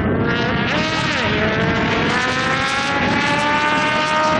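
Multirotor drone's propellers whining close to the microphone: several tones at slightly different pitches drifting slowly upward, one dipping briefly about a second in, and all falling in pitch near the end.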